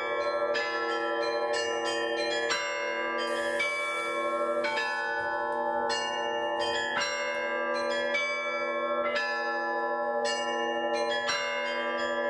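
A set of church bells rung by hand in a continuous zvon (Russian-style bell ringing). Small bells are struck quickly, several strikes a second, over the lasting hum of larger bells.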